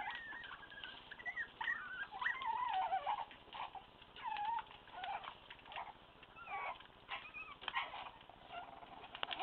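Month-old Staffordshire bull terrier puppies squealing and whining in many short, high-pitched yelps that slide up and down as they play-fight.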